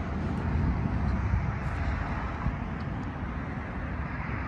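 Wind buffeting the microphone, a gusty low rumble, over a steady hiss of road traffic.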